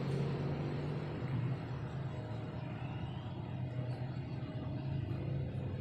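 A steady low mechanical hum that runs throughout.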